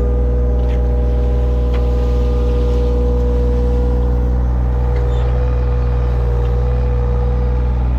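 Engine of a digging machine running steadily at a constant speed, with an even hum that holds its pitch throughout.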